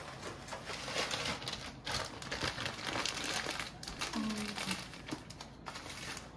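A clear plastic food bag crinkling and rustling as it is handled, in irregular bursts.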